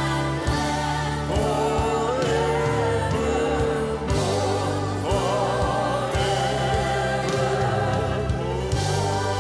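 Mixed gospel vocal group, men and women, singing in harmony with piano and band, drawing out the word "forevermore" in long held notes with vibrato.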